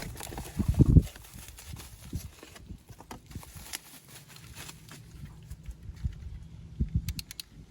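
Handling noises as the new power window master switch is unpacked and looked over: a few loud dull thumps about a second in, scattered knocks and rustling, and a quick run of sharp clicks near the end.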